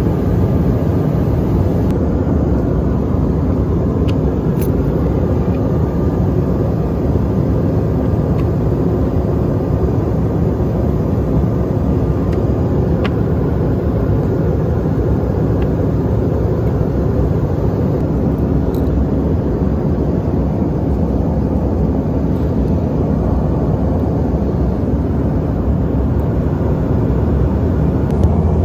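Steady cabin noise of a Bombardier CRJ-900 airliner, the even low rush of airflow and its two rear-mounted GE CF34 turbofans heard from inside the passenger cabin. A few faint clicks sound over it.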